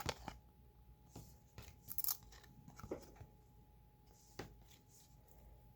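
Trading cards being handled and flipped through: scattered soft clicks and brief scrapes of card stock sliding against card stock, with a brighter scrape about two seconds in.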